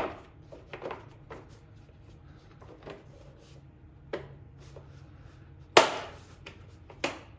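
Scattered plastic clicks and knocks as a new air filter is pressed down into the mower engine's air cleaner housing and latched in place, with one loud snap or knock about six seconds in and another a second later.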